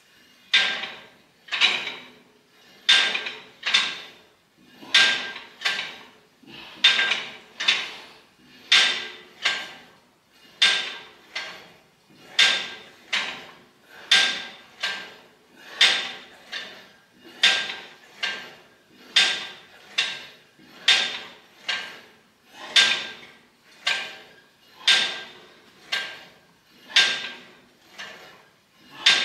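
Cable machine clinking with each rep of tricep pushdowns: pairs of short metallic clanks with a brief ring, one pair about every two seconds, as the weight stack and bar attachment go down and back up.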